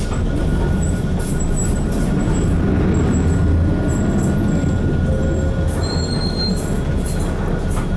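Cabin running sound of an Isuzu KC-LV380N one-step city bus on the move: its diesel engine drones low with road noise, swelling slightly partway through, over a faint steady high whine.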